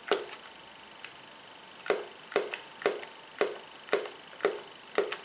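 Plastic pipette dropper of a liquid foundation bottle squeezed over and over: a single click at the start, then a steady run of sharp clicking squelches about twice a second. The dropper is giving no liquid, which the user puts down to a drop already sitting in the pipette.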